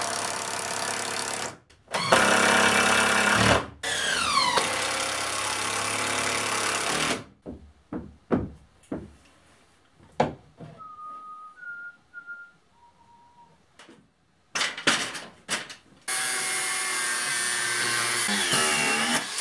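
A power tool runs in long loud stretches for the first several seconds, one stretch falling in pitch as it slows. A few knocks and handling sounds follow. Then, for the last few seconds, an angle grinder with a thin cut-off disc cuts steadily, its pitch dipping under load near the end.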